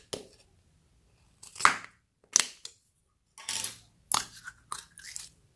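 Plastic slime container being pried open by hand: a series of sharp plastic clicks and crackles, about six or seven, the loudest about one and a half seconds in.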